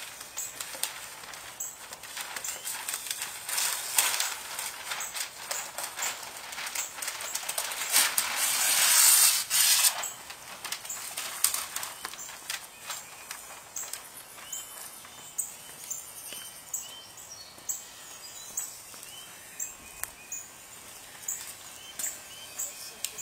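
Outdoor ambience with small birds chirping in short, repeated high calls and scattered light clicks and rustles. About eight seconds in, a rush of noise swells and then cuts off suddenly.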